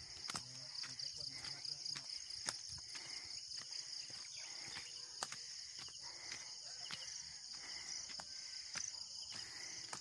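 Steady high-pitched chorus of insects, with scattered clicks and rustles on top.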